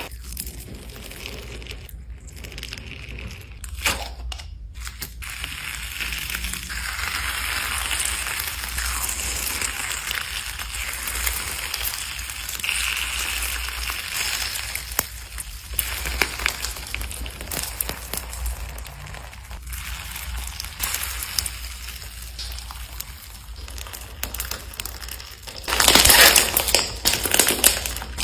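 Slime being squeezed, pressed and poked by hand close to the microphone, a continuous crackling, crunching sound that gets much louder near the end.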